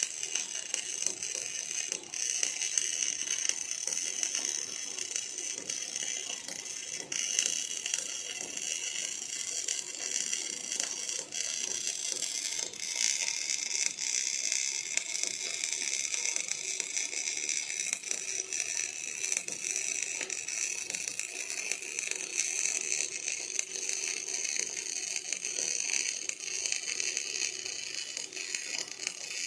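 Robotic arc welding: the welding arc crackles steadily and continuously.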